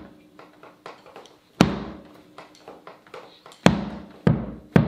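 A big drum struck with a drumstick: a few loud, irregularly spaced hits, each ringing out, coming faster in the last second or so.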